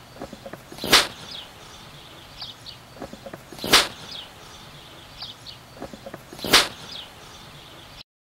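Three sharp cracks, evenly spaced about three seconds apart, each with faint short high chirps just before and after it; the whole pattern repeats the same way each time.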